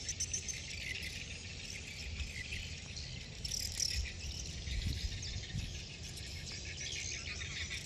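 Insects chirping steadily and densely, high in pitch, with a low rumble underneath.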